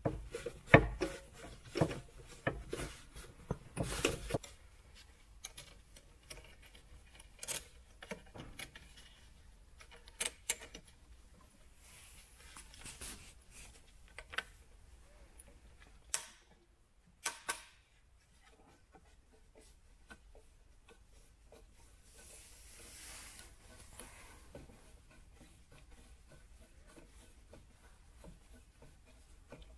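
Small metallic clicks and rattles of parts and tools being handled while a hose clamp is fitted on the black corrugated hose of a diesel parking heater: a quick flurry in the first few seconds, then a few single clicks and a soft rubbing sound about two-thirds through.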